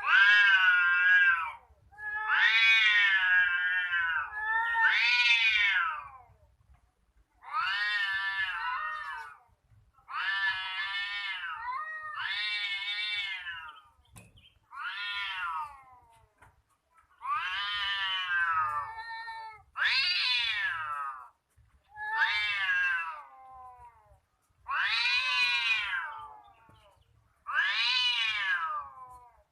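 Cats yowling in long, drawn-out wails: the caterwauling threat calls of a cat fight. About a dozen yowls, each one to two seconds long, rise and fall in pitch with short pauses between them.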